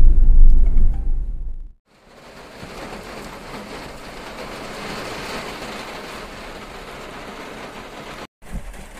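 A loud low rumble for the first second and a half, then, after a brief cut, the steady hiss of rain falling, which stops abruptly near the end.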